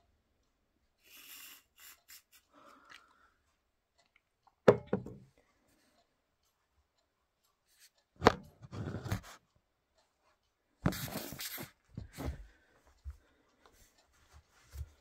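An aerosol can sprayed in several short spurts at close range onto a mesh sneaker. There is a soft hiss early, then loud sprays a little under five seconds in and just past eight seconds, and a longer one about two-thirds of the way through.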